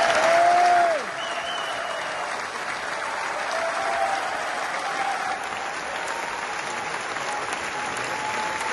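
Concert audience applauding after a song. A loud held cheer rides over the clapping for the first second, then falls away, and steady clapping goes on.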